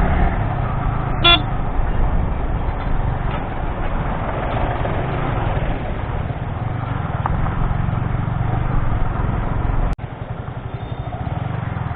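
Yamaha R15 motorcycle on the move, with the single-cylinder engine and the road making a steady low rumble. A brief vehicle horn toots about a second in. The sound drops suddenly in level near the end.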